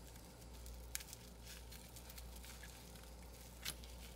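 Faint crinkling of bubble wrap and tape being peeled away by hand from a small metal lock cylinder, with two sharper clicks, about a second in and near the end.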